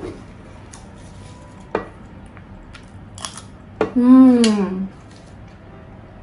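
Metal spoon scraping and clicking against a plate and banana leaf while gathering the last of the rice, a few sharp clicks. About four seconds in, a closed-mouth hummed "mmm" lasting about a second, falling slightly in pitch.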